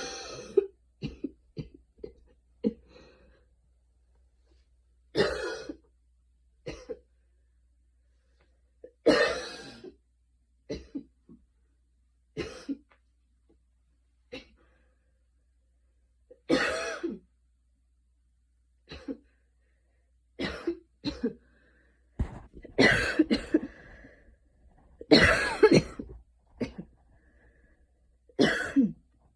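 A young woman coughing in short bouts every few seconds, some sounding more like throat clearing, with the loudest run of coughs near the end. It is a light cough after a fast run.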